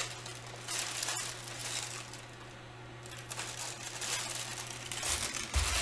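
Plastic bag or candy packaging crinkling and rustling in irregular handfuls as it is rummaged through, with a sharp click about a second in and a dull bump near the end.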